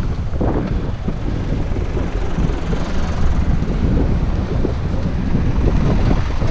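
Wind buffeting the microphone: a loud, choppy low rumble over a steady haze of outdoor noise.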